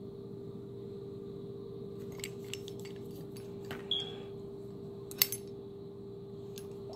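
Scattered clicks and rattles of a nickel boron-coated M16 bolt carrier group being handled in and lifted out of its clear plastic packaging tray. There is one sharp clack about five seconds in, over a steady hum.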